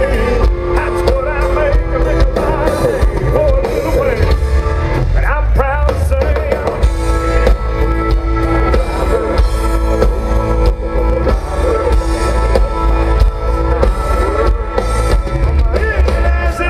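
Live country-rock band playing loudly: drum kit with a steady beat, bass and guitars, with a wavering sung melody over it at times.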